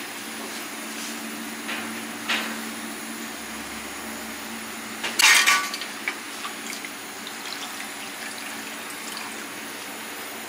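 Metal clatter as a wire fish-grilling basket is set down and opened on a steel tray, loudest about five seconds in, with a few lighter knocks before it and small clinks after, over a steady background hum.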